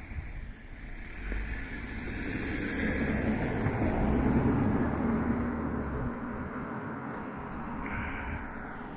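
A vehicle passing: a low rumble swells to its loudest about four seconds in and dies away about six seconds in.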